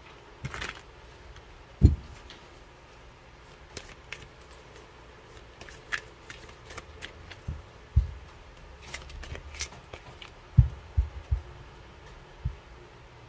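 Oracle cards being handled and flipped through by hand: light card clicks and rustles, with several low thumps as the cards knock on the table.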